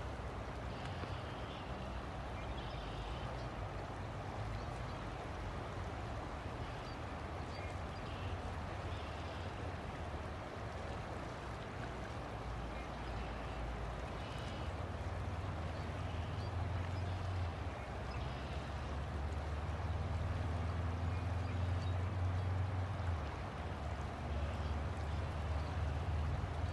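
River water flowing steadily, with a low steady hum underneath that grows a little louder about halfway through.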